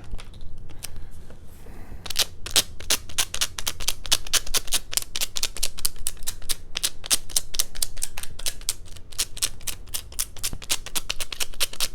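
Dust-removal sticker dabbed again and again on an iPhone's glass screen, a rapid run of sticky tapping clicks. They start faint, then grow louder and quicker about two seconds in, to roughly five a second.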